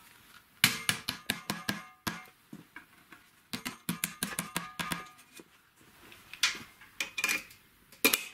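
A hammer striking the top of a square steel tube to drive it into place: quick runs of sharp metal knocks with short pauses between them.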